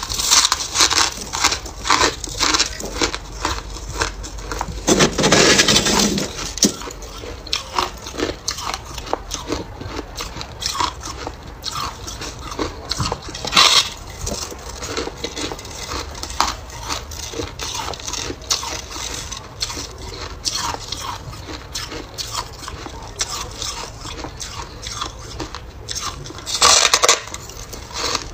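Biting and chewing soft, snow-like freezer frost: a rapid, irregular run of crisp crunches, with two longer, louder crunches about five seconds in and near the end.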